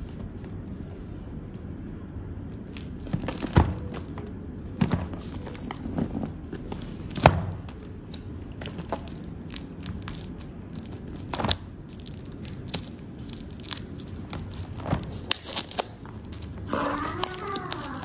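Plastic shrink wrap crinkling on a boxed coffee grinder as it is handled and unwrapped, with scattered sharp clicks and taps of the box on a rubber mat. A brief voice near the end.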